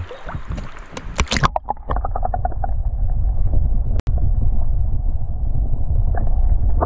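Camera handling clatter, then river water heard from a camera held under the surface: a steady, muffled low rumble and gurgle of the current, with a few clicks, starting about two seconds in.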